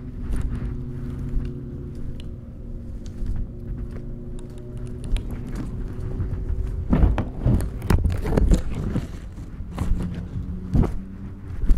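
The Aprilia Tuono V4 1100 Factory's V4 engine holds a steady low note. Between about seven and nine seconds a cluster of knocks and clatter comes in, and there is another sharp knock near the end.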